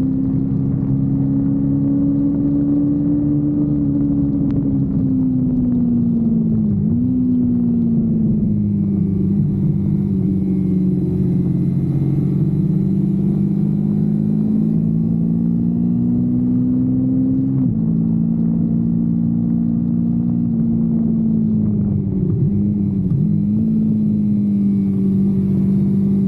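Kawasaki Versys-X 250 parallel-twin engine running under way, its pitch rising and falling with the throttle through a series of bends. Brief dips in engine speed about 7 and 23 seconds in, and a sudden drop in pitch about 18 seconds in, as from an upshift.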